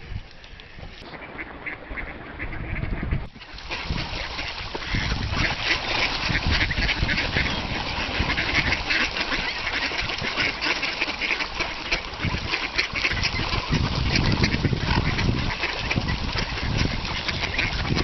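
A large flock of ducks, mostly mallards, quacking all together in a dense, continuous din. It builds over the first few seconds and is at its fullest from about three seconds in.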